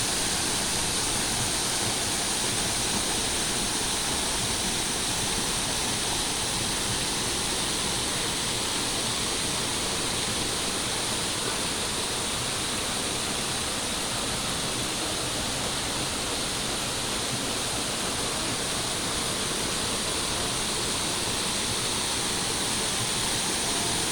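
Kurşunlu Waterfall's falling water, a steady, even rush that does not change.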